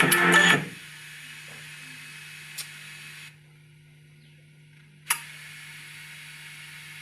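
Song playing through a 4440 single-IC amplifier board and woofer speakers cuts off under a second in. It leaves a steady low hum and faint hiss from the speakers, which the owner puts down to using unshielded wire. A sharp click comes about two and a half seconds in and another about five seconds in, with the hiss dropping out between them.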